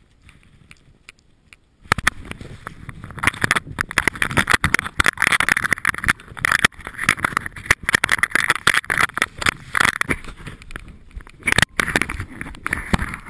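Loud rushing and rattling from a camera carried on a ridden Icelandic horse, the jolts of the horse's movement shaking the mount and wind buffeting the microphone. It starts suddenly about two seconds in, after a near-quiet start with a few faint ticks.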